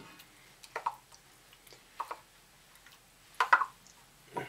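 A few light metallic clinks and taps of a spoon against a metal canteen cup while the chicken and soup mixture cooks, the loudest pair about three and a half seconds in.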